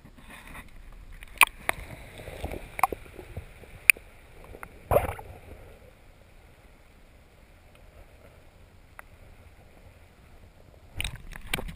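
Water splashing and gurgling as a redfish is released beside a kayak and the camera is dipped underwater. Several sharp knocks come in the first few seconds, with a louder splash about five seconds in. Then a faint, muffled underwater hush, broken by more splashing near the end.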